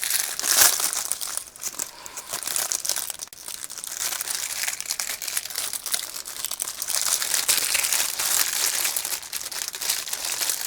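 Packaging crinkling and rustling in an irregular run as a squishy toy is worked out of it by hand, loudest about half a second in.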